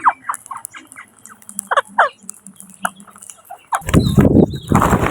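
Indian ringneck (rose-ringed) parakeets giving short, sharp calls that drop in pitch, several in quick succession. Near the end come two loud rushing bursts of noise.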